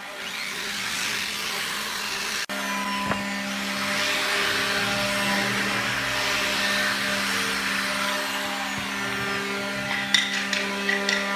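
Electric power tool running steadily, a motor hum under a hissing cutting or grinding noise, with a brief break about two and a half seconds in and a few sharp knocks near the end.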